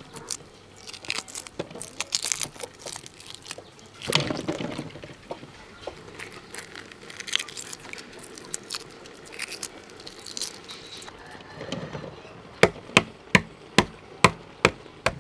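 Boiled duck eggs being peeled by hand in a steel bowl of water: shells crackling and small splashes of water, in irregular clicks. Near the end, a run of about six sharp taps, about two a second, as an egg is knocked to crack its shell.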